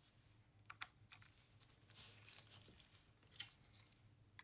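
Near silence with a few faint, scattered clicks and light taps: coin-cell batteries being handled and set into a calculator's plastic battery compartment.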